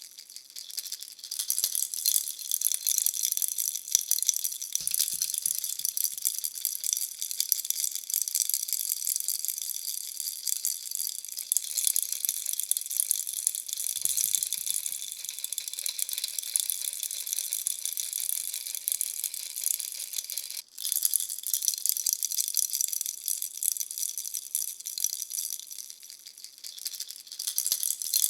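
Bunny-shaped baby rattle being shaken steadily, a dense high-pitched rattle that breaks off for a moment about twenty seconds in before going on.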